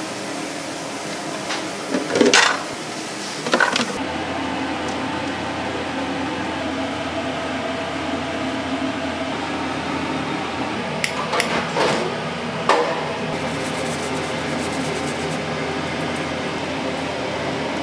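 Steady kitchen noise, like an extractor fan or cooking running, with a few short clatters: two about two and three and a half seconds in, and a cluster between about eleven and thirteen seconds.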